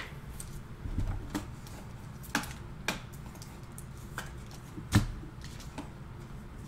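Clear plastic card holders and trading cards being handled: a handful of sharp clicks and taps at uneven intervals, the loudest about five seconds in.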